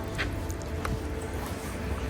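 Soft background music over a steady low rumble, with a couple of light clicks.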